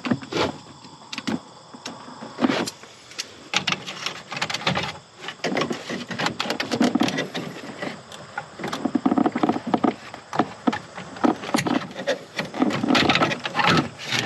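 Irregular clicks, knocks and rustling from hands working loose plastic trim, clips and wiring behind a truck dashboard.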